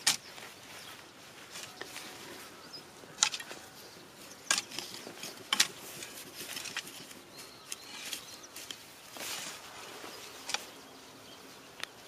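Soil being dug by hand to lift sweet potatoes: scattered sharp crunches and scrapes, about six in all, the loudest a little past three, four and a half and five and a half seconds in.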